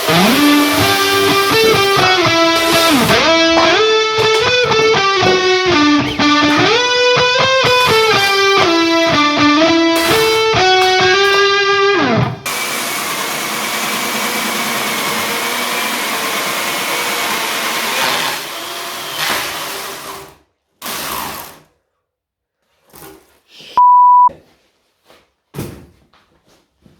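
Plucked-guitar music for about twelve seconds, which then cuts off. A steady hissing noise follows for about eight seconds. Near the end comes a short, loud, pure electronic beep, with a few faint clicks around it.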